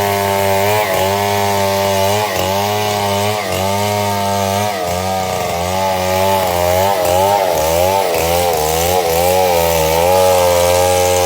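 Chainsaw running at high revs and cutting wood, its pitch sagging and recovering again and again as the chain bites under load. A steadier low hum runs underneath.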